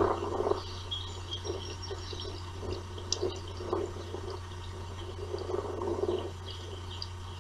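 Irregular bursts of rustling and scraping right against the nest camera housing, with the loudest at the start and another longer burst near the end, over a steady low electrical hum.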